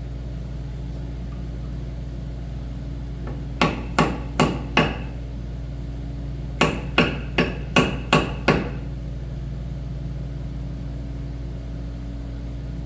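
Hammer blows on the bent main shaft of an Arcade Crystal coffee grinder, straightening it: four ringing metallic strikes, a pause of about two seconds, then six more in quicker succession.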